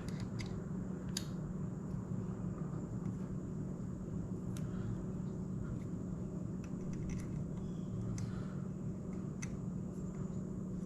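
A steady low hum, with a few scattered light clicks and taps as the phone-mount hardware is handled on the handlebars.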